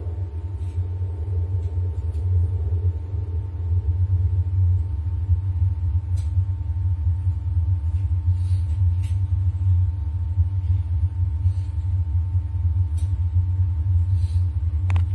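A low, steady rumbling drone with a faint held tone above it: an eerie background soundtrack.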